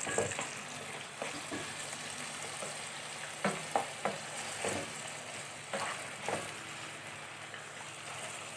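Small cubes of chicken breast sizzling in hot oil and ghee in a frying pan, with a steady hiss, while they are stirred and sautéed; the utensil scrapes the pan in short strokes several times, most of them in the middle of the stretch. The chicken is in its first searing, not yet changed colour.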